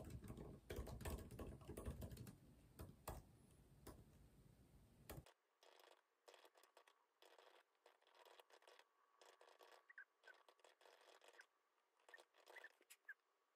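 Faint typing on a computer keyboard, soft irregular key clicks. A low rumble lies under the first five seconds and cuts off suddenly.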